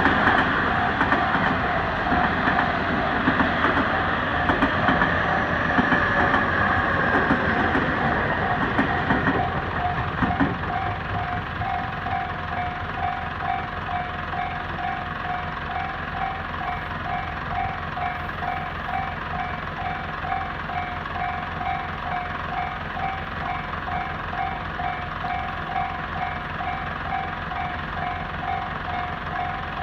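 Japanese level-crossing alarm bell dinging in a steady repeating rhythm while a Tobu Tojo Line train passes over the crossing. The train noise dies away about ten seconds in and the crossing bell keeps ringing.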